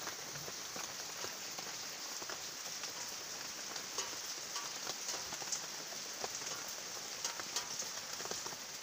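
Steady rain falling on leafy vegetation: an even hiss with many separate drop hits ticking on the leaves close by.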